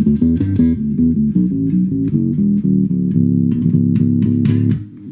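Active electric bass played through a DOD FX35 Octoplus octave pedal: a fast run of notes high up the neck, the added lower octave tracking cleanly with no artefacts. The playing stops abruptly near the end.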